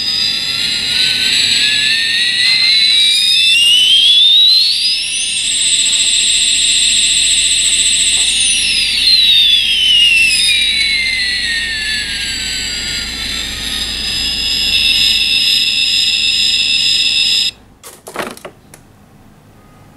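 Battery-powered toy jumbo jet airliner playing its electronic jet-engine sound effect: a high whine rising in pitch over a hiss, holding a high tone, then falling again. It cuts off suddenly near the end, and a few light knocks follow.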